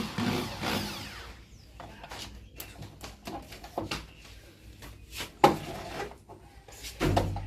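Scattered clicks, knocks and rubbing of washing-machine parts being handled during disassembly, with one sharp knock about five and a half seconds in.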